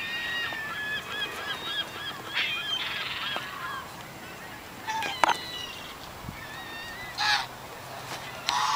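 White domestic geese honking and calling: a run of short calls in the first few seconds, then separate louder honks about five, seven and eight and a half seconds in.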